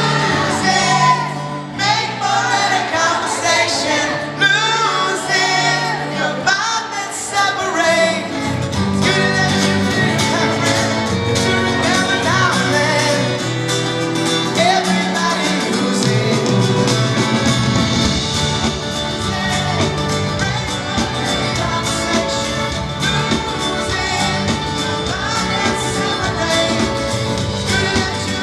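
Live pop-rock band playing with singing in a large hall. The low end fills out about eight seconds in as the full band comes in under the vocals.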